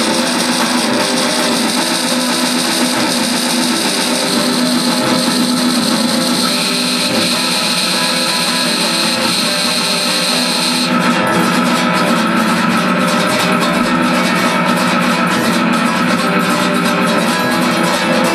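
Band music: guitar playing over held steady tones. About eleven seconds in, the mix changes: the high hiss-like layer drops away and a new held tone comes in.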